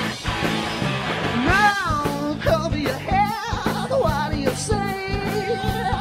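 Live rock band playing electric guitar and drums, with a man singing; the vocal line comes in about one and a half seconds in.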